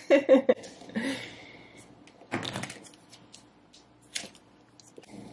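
Pre-made slime being squeezed and worked in a small plastic pot: a few short squelches in quick succession at the start, a longer squelching rasp about two and a half seconds in, and a sharp plastic click a little after four seconds.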